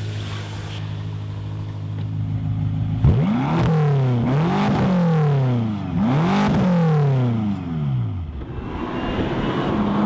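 BMW M5's twin-turbo V8 through a Dinan exhaust, idling steadily, then revved hard twice, about three seconds in and again about six seconds in. Each rev climbs fast and falls back slowly.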